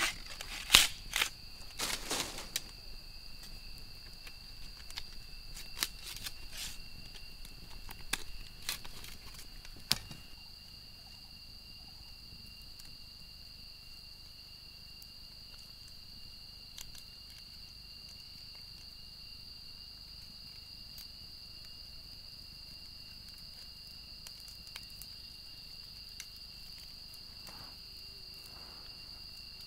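A machete striking and shaving a bamboo pole: a series of sharp knocks in the first ten seconds, the loudest about a second in. Behind it, a steady high-pitched insect chorus runs throughout and is the only sound left after about ten seconds.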